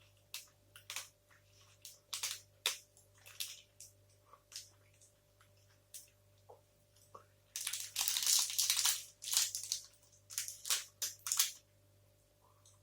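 Close-miked chewing of a firm, dry chocolate protein bar: irregular wet clicks and crunches, with a denser, louder crackling stretch of about a second and a half just past the middle.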